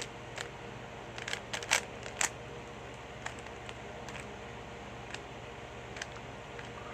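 Irregular plastic clicks and clacks of a 3x3 Rubik's cube being turned, a cluster in the first two and a half seconds and scattered single clicks after, over a steady low hum.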